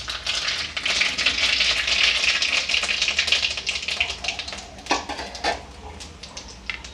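Mustard seeds, cumin and dried red chillies spluttering in hot mustard oil in a steel kadhai: a dense crackle of many small pops as the tempering fries. The crackling is thickest in the first few seconds and thins out in the second half.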